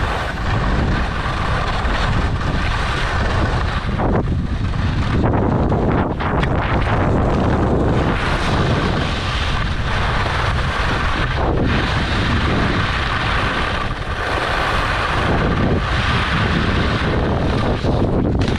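Wind rushing over the microphone of a skier's action camera at speed, with Line skis sliding and scraping over packed, tracked snow.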